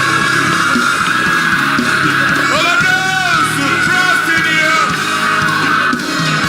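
Church worship-band music with sustained keyboard chords and guitar, with voices shouting and singing over it.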